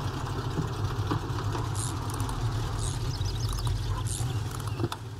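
Car engine running steadily with a low rumble, a few light clicks over it.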